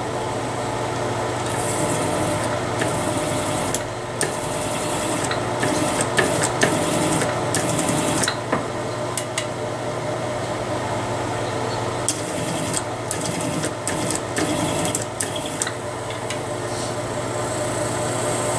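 Primer-pocket crimps being cut out of .223 brass cases with a crimp-removal cutter: metal scraping and rasping in the brass, with frequent clicks and knocks of cases being handled, over a steady motor hum.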